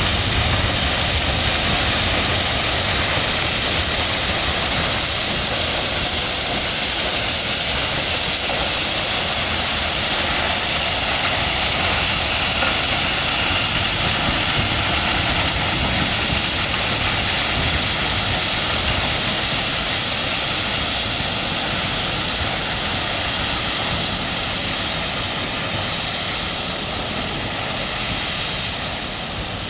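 Crushed-stone ballast pouring steadily from the doors of moving ballast hopper wagons onto the track bed, a continuous rush of falling gravel, with the wagons rolling past. It eases off a little near the end as the wagons move away.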